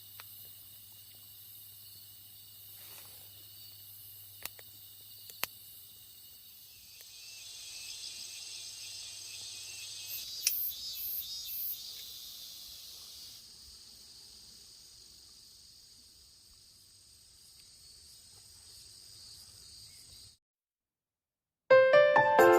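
Autumn insects such as crickets chirping steadily in several high-pitched bands, swelling louder for a few seconds midway, with a few faint sharp clicks. The sound cuts out near the end and music begins.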